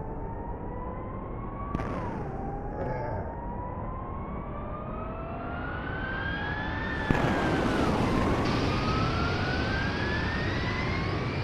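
Jet airliner engines as a film sound effect: a whine climbing steadily in pitch, dropping back with a click about two seconds in and climbing again. About seven seconds in, a sudden loud burst opens a rushing jet roar, and the whine dips and then climbs on.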